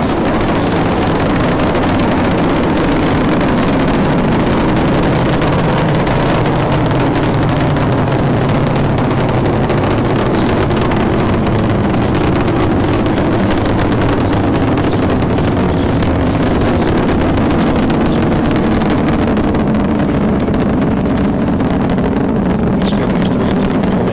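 Space Shuttle Discovery's solid rocket boosters and main engines firing during ascent: a loud, steady rocket noise with no let-up, its top end dulling slightly near the end.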